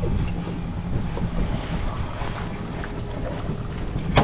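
Wind buffeting the microphone over water sloshing around the boat, with a single sharp knock near the end.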